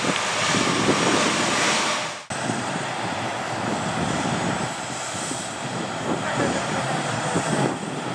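Boeing 757 jet engines running at taxi power, a steady noise spread from low to high pitch. It breaks off for a moment about two seconds in, then continues a little quieter.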